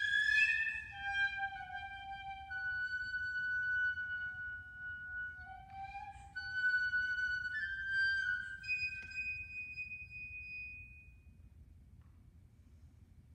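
Solo piccolo playing a contemporary piece: long held notes, some bending in pitch, with breathy, noisy attacks in the middle. The last high note fades out about three quarters of the way through, leaving only quiet room sound.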